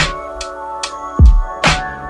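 Background R&B/hip-hop music between sung lines: sustained keyboard chords over a drum-machine beat, with a kick and a snare.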